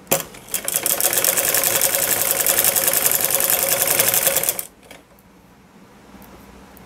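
Sewing machine running at a steady fast rate as it stitches a seam, a rapid, even clatter of needle strokes that stops abruptly after about four and a half seconds.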